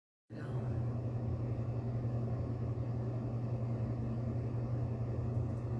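A steady low droning hum starting a moment in, with no distinct bursts or changes.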